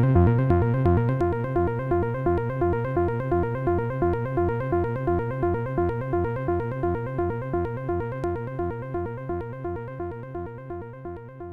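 Behringer 2600 analog synthesizer playing a repeating, hypnotic sequenced pattern of about four notes a second, fading out steadily.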